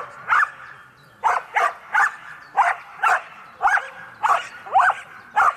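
A dog barking over and over in quick, sharp, high barks, about two a second.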